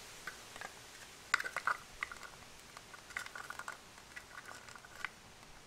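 Small crackles and clicks of hands working pieces of 3M VHB double-sided tape and its red plastic liner onto a small plastic cable entry box, in three short flurries.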